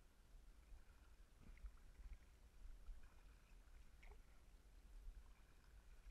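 Faint, muffled kayak paddling heard through a sealed waterproof camera housing: a low rumble with a few soft knocks from the paddle and hull.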